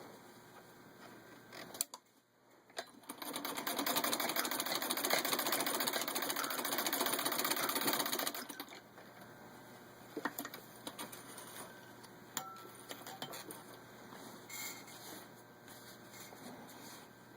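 Antique 1923 Singer 15-30 sewing machine, turned by hand crank, stitching through thick layers of denim in one steady run of rapid clatter lasting about five seconds. A few clicks come just before the run, and lighter scattered clicks and knocks follow it.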